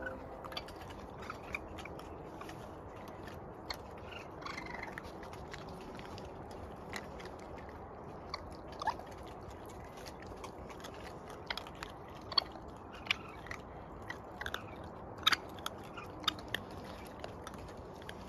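Young raccoons moving about on a wooden deck: scattered light clicks and taps, with a few short faint squeaks.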